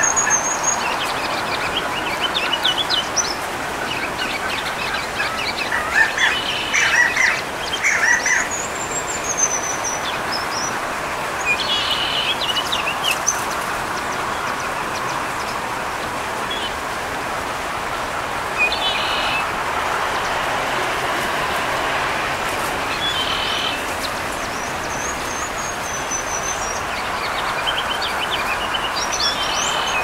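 Small songbirds chirping and calling in scattered bursts, with a few high whistled notes that rise and fall, over a steady rushing background noise.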